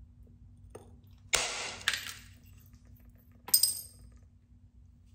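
Knapping percussion on a heat-treated Flint River chert knife preform. A sharp crack a little over a second in trails off in a short scratchy rattle with a second click inside it. About three and a half seconds in comes another sharp, glassy, ringing strike.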